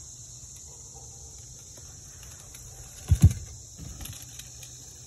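Steady high chirring of crickets, with two loud low thumps about three seconds in and a few softer knocks just after.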